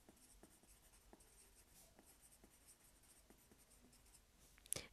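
Faint scratching of a pencil writing on paper, with small ticks as strokes start and stop.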